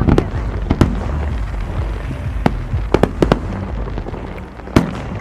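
Fireworks show: aerial shells bursting in a string of sharp bangs over a continuous low rumble. A quick run of bangs comes a little past the middle, and the loudest single bang comes near the end.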